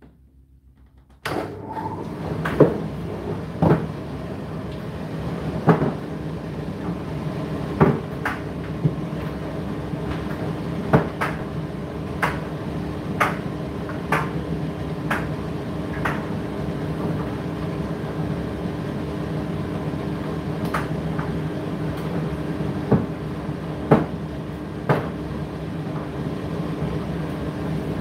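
Indesit IDC8T3 condenser tumble dryer starting up about a second in, then running with a steady motor hum. Its turning drum gives irregular sharp knocks every second or two.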